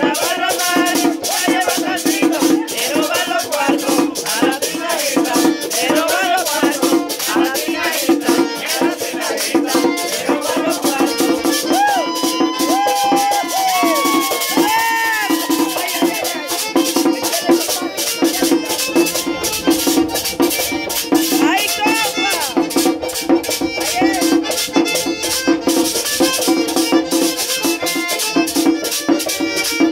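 Live merengue típico band: a button accordion plays the melody over a two-headed tambora drum, with a metal güira scraped in a fast, even rhythm throughout.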